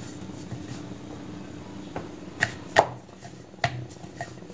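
A wooden rolling pin and round wooden rolling board being handled as a stuffed paratha is rolled out: a handful of sharp light knocks in the second half, over a faint steady hum.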